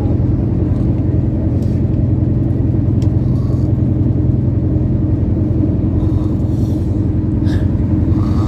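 Loud, steady low rumble with a fast fine pulse, like an idling diesel engine, unbroken and with no breathing pauses.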